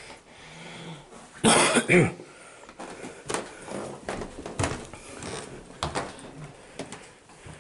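A person coughs twice in quick succession about a second and a half in, followed by soft footsteps going down a staircase, roughly one step a second.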